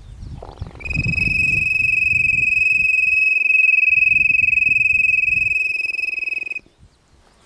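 Insect call: one steady, high-pitched whine held for about six seconds, with a pulsing lower buzz under it. It starts about a second in and cuts off suddenly near the end.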